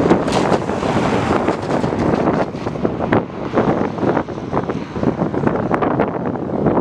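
Strong wind buffeting the microphone: a loud, gusty rumble with many short thumps, a little brighter in the first couple of seconds.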